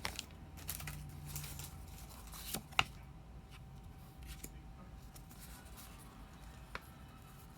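Faint handling of freshly unwrapped Pokémon trading cards, light rustles with a sharp tick about three seconds in and another near the end.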